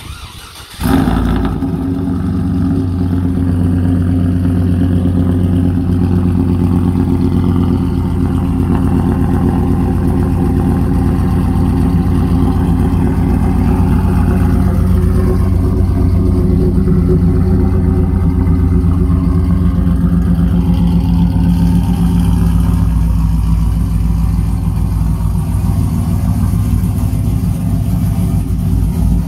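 Cold start of a GM pickup's LS V8 with a BTR Stage 2 truck cam, AFM/DOD delete, long-tube headers and a catless Carven R muffler: it fires about a second in and settles into a loud, pulsing idle.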